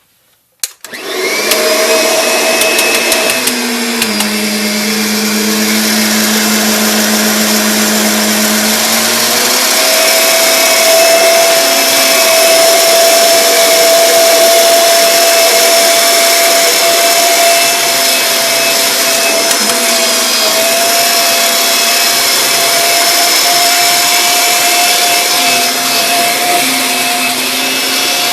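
Kirby Sentria II upright vacuum cleaner switched on with a click about a second in, its motor spinning up to a loud, steady whine and running on. Its pitch shifts a little around four and ten seconds in.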